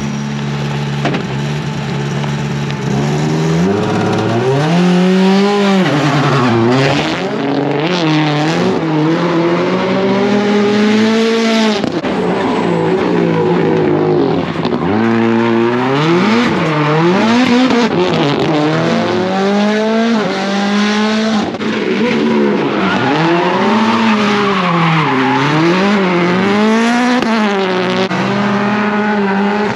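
Turbocharged Subaru WRX STI rallycross car idling steadily, then from about three seconds in revving up and down again and again as it slides through donuts. Tyre squeal and wheelspin run under the engine.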